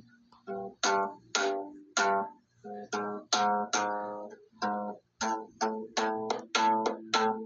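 Slap bass played as a run of short, separate notes, each with a sharp percussive attack and a quick decay, with a couple of brief pauses between phrases.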